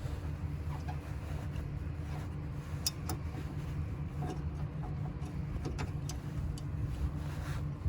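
Steady low mechanical hum, with scattered light clicks and taps from metal parts being handled as a hood release cable is worked into a hood latch.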